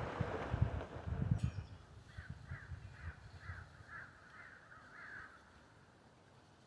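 A bird calls a quick run of about eight short harsh notes, a little over two a second, after wind buffeting the microphone in the first second or so.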